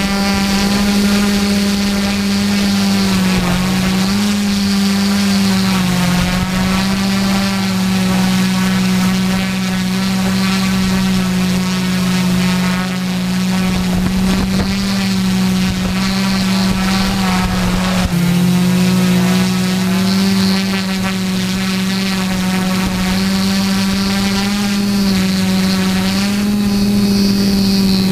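Sky Hero six-rotor multicopter's electric motors and propellers running in flight, heard close up from on board: a loud, steady hum with a whine of overtones. Its pitch wavers and dips briefly a few times as the motors change speed.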